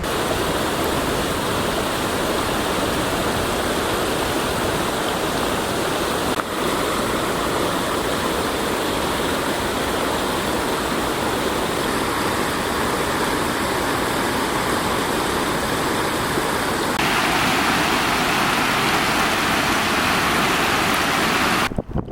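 Floodwater rushing in a steady, loud wash of water noise. The sound shifts abruptly twice and turns gusty just before the end.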